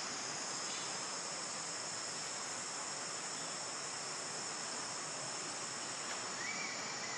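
Steady high-pitched drone of an insect chorus, unbroken throughout, with a brief high whistle-like note about six seconds in.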